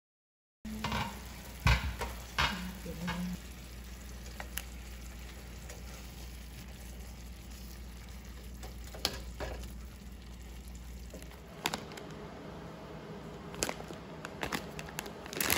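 Tonteki (pork steak) cooking in a frying pan, sizzling steadily, with a few sharp clicks and taps. A low hum underneath stops about three quarters of the way through.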